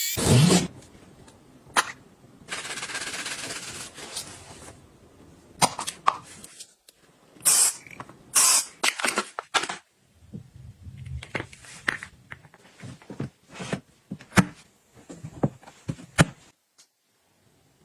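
Household items being handled: a string of sharp clicks, taps and knocks, with a steady hiss lasting about two seconds near the start and two short hisses midway.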